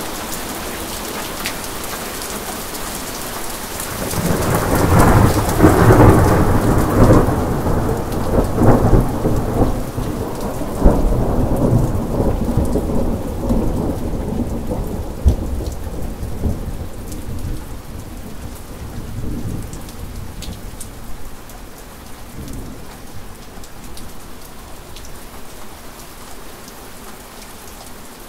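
Steady rain with a long thunder peal. The peal rolls in about four seconds in, peaks with a sharp crack near the middle, then slowly rumbles away under the rain.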